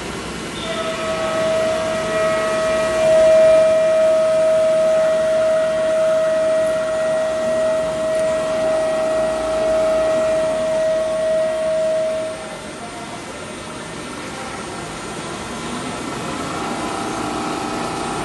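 Microcut Challenger BNC 1840 CNC lathe running with a steady, high-pitched whine that cuts off about twelve seconds in, leaving a lower machine hum.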